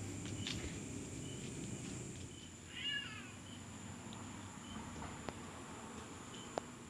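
One short, high-pitched cat meow about three seconds in. Under it a faint chirping repeats roughly once a second, and two light clicks come near the end.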